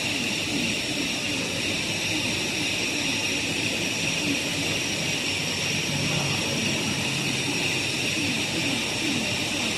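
3D printer filament extrusion line running: a steady mechanical drone and hiss with a constant high-pitched whine.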